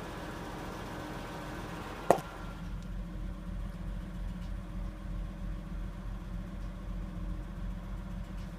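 Nissan Laurel's RB20E straight-six idling after about five minutes of warm-up, with its hydraulic lifters knocking. A single sharp click about two seconds in, after which the engine sound turns duller and lower.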